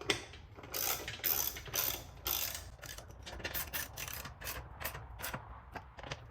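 A 7/16 ratchet wrench clicking as the muffler-plate bolts are tightened. It goes in short runs at first, then settles into quicker, evenly spaced clicks about three or four a second.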